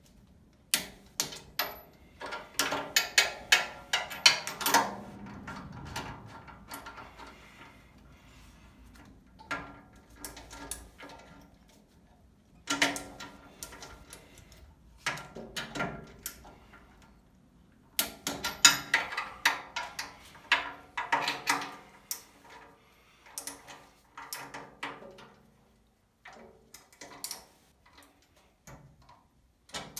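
Ratcheting torque wrench with a socket tightening a steering rack's mounting bolts to 35 Nm, heard as about six bursts of rapid ratchet clicks with short pauses between them.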